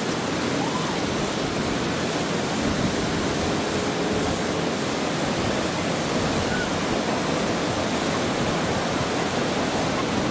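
Steady rushing noise of ocean surf and wind, even and unbroken.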